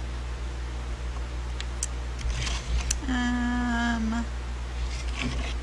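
A woman hums one held note for about a second, a little past the middle, its pitch dipping slightly at the end, over a steady low electrical hum, with light rustling before and after.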